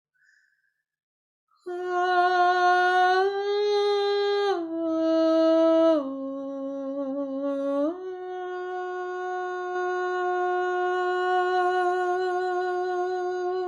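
A woman's voice toning long, slow held notes, coming in after a short silence; the note steps down twice, rises back up about two-thirds of the way through and is then held steady.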